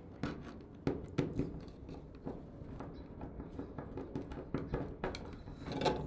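A screwdriver driving screws to fix a plastic smoke alarm base to a wooden rafter, heard as a string of irregular sharp clicks and scrapes of the tool and plastic, with a louder scrape just before the end.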